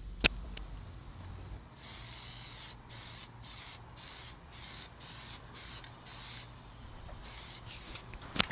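Aerosol can of Plasti Dip rubber coating spraying onto a wheel rim in a run of short hissing bursts with brief pauses, starting about two seconds in. There is a sharp click near the start and another near the end.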